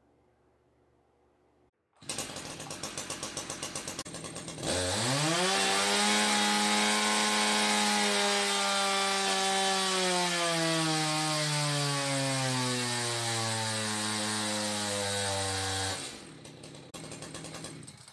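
Echo CS-620 two-stroke chainsaw on a dyno: idling with a fast pulsing from about two seconds in, then snapped to full throttle, its pitch leaping up and holding high before being dragged steadily lower over several seconds as the dyno loads it down. Near the end the throttle is released and it drops back to idle. This is a stock baseline dyno pull.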